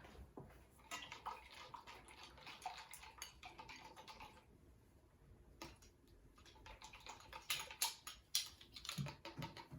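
Borax and water being stirred in a cup with a spoon to make slime activator: faint sloshing with light clinks against the cup, easing off for a moment around the middle.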